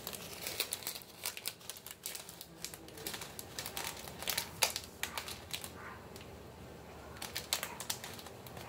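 Plastic packets crinkling as they are handled, with many irregular sharp clicks and crackles.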